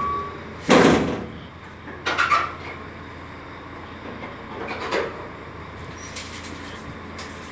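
Metal bangs and clatter in an empty steel livestock trailer: one sharp bang about a second in, a short rattling clatter around two seconds, and a softer knock around five seconds, with a low steady hum underneath.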